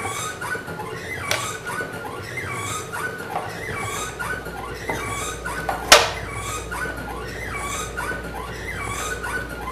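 Small leather-and-card double-rise pneumatic motor squeaking in many short, irregular chirps as it is worked by hand and loaded with wooden blocks, over a steady low hum. There is one sharp knock about six seconds in.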